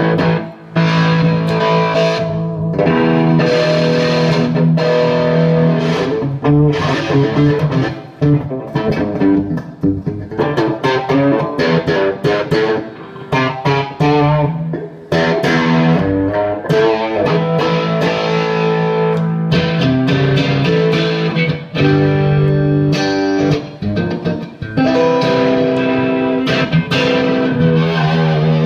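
Electric guitar played through a Bad Cat Siamese Drive pedal into a 3rd Power amplifier: ringing chords and single-note phrases, with short breaks between phrases while the pedal's settings are adjusted.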